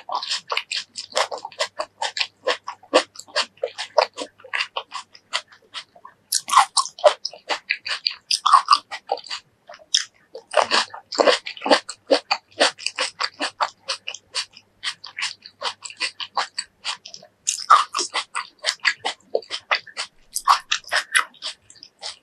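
Close-miked chewing of crisp fresh fruit: rapid wet crunching and mouth sounds, broken by a few short pauses.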